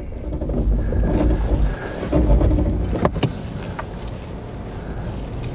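Lexus GX 460's 4.6-litre V8 engine running as the SUV ploughs through deep snow, with a heavy low rumble that is strongest in the first three seconds and a few sharp knocks about three seconds in. The tyres are slipping for want of traction.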